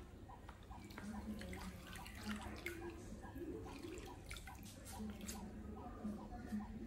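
Water dripping and splashing in a plastic basin as a wet cloth is dipped and wrung out, with a run of drips in the middle.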